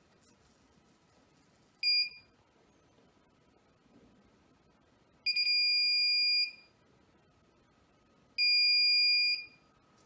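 Electronic buzzer of an Arduino distance-alarm circuit beeping three times with a steady high tone: a short beep about two seconds in, then two longer beeps of about a second each. Each beep signals that the tracked object has moved beyond the 25 cm safe-distance limit.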